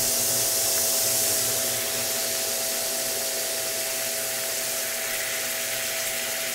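Steady sizzling hiss of red wine and steak drippings reducing in a frying pan, over the steady hum of the stove's vent fan. The hiss eases a little about two seconds in.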